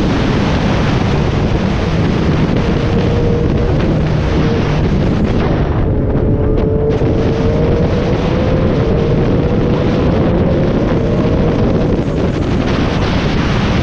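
Heavy wind buffeting on the microphone of a motorcycle at road speed, with the Yamaha MT-09's three-cylinder engine note faintly underneath, its pitch rising slowly in the middle. For about a second near the middle the sound goes muffled as a ribbon flaps over the microphone.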